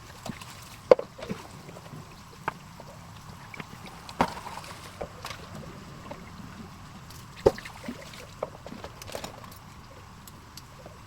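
Dishes being washed by hand in a kitchen sink: water sloshing, with dishes and utensils knocking and clinking every second or two over a steady hiss.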